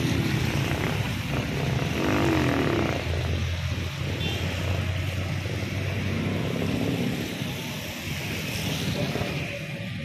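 Distant airliner engines giving a steady low drone, under an even hiss of wind and rain on the microphone.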